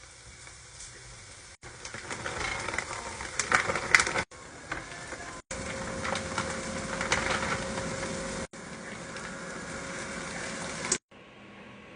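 Kitchen cooking and food-prep sounds in several short cuts: a noisy hiss with scattered clicks and clatter, changing abruptly at each cut.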